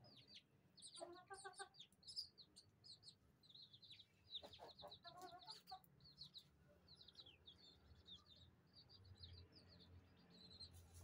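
Chicks peeping in a rapid, continuous string of short high chirps. A chicken clucks briefly about a second in and again around four to five seconds in.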